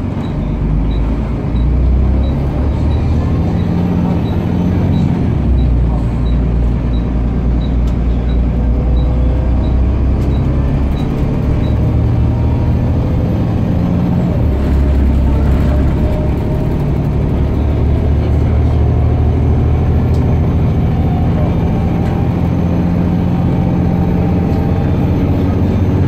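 Volvo B7TL double-decker bus's six-cylinder diesel engine and driveline heard from on board while the bus drives along, the engine note rising and stepping with faint climbing whines. A light tick repeats about twice a second for the first twelve seconds or so, the turn indicator clicking.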